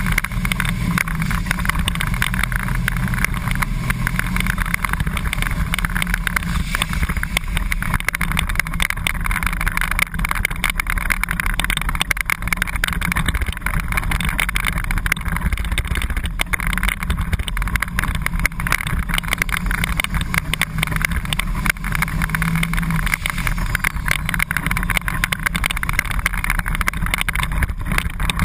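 Flat-nose school bus engine running hard and steady under racing load, heard from inside the cab, mixed with a constant noisy rumble of the bus at speed.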